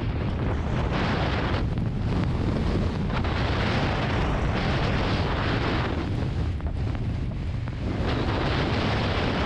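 Wind buffeting the microphone at speed while riding down a snow-covered slope, a steady low rumble, with the hiss of snow sliding under the rider swelling and fading several times through the turns.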